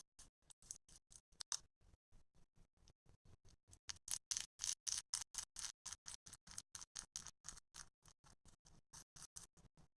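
Slime being squeezed and worked by hand, giving a quick run of small wet clicks and pops, about five a second, louder and faster for a few seconds in the middle.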